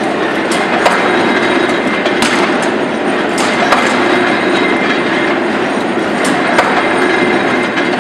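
Charcoal briquette press running: a loud, steady mechanical clatter, broken by a few sharp metallic clicks.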